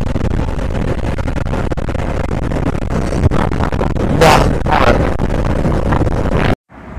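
Steady wind rush and road noise on the microphone of a motorcycle riding at speed. It cuts off abruptly shortly before the end.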